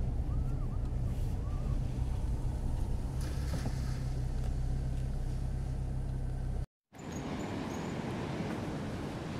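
Car cabin noise from driving slowly on a wet cobbled street: a steady low engine and road rumble. After an abrupt cut about seven seconds in, a steady outdoor noise of wind and rough surf takes over.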